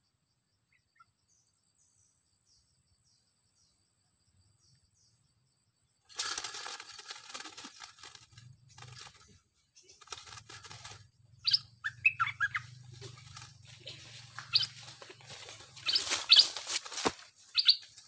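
A bird giving sharp, short high chirps, scattered from about the middle onward, over rustling and fluttering noise that starts suddenly about a third of the way in. The first part is nearly quiet apart from a faint steady high tone.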